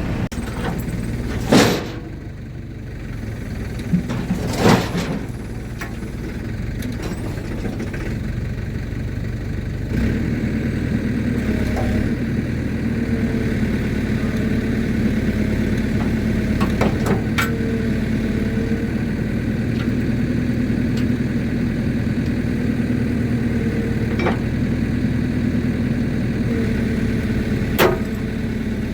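Diesel engine running steadily, getting louder about ten seconds in, with a few sharp knocks along the way.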